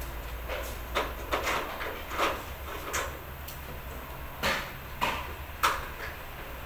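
About eight light knocks and clatters at uneven intervals from work on aluminium sliding-door frames, over a low steady hum.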